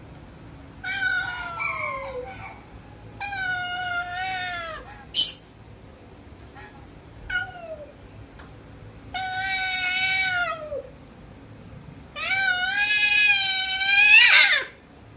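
Domestic cat yowling: four long, drawn-out wavering meows, the last one the longest and loudest, with a short high squeak about five seconds in.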